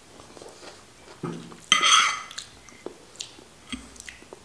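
Close-miked chewing and small mouth clicks of someone eating boiled green beans, with a fork scraping and ringing on a ceramic plate about two seconds in, the loudest sound.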